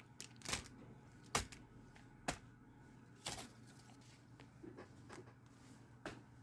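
Paper being handled close to the microphone: a handful of sharp taps and short rustles, roughly one a second, over a faint steady hum.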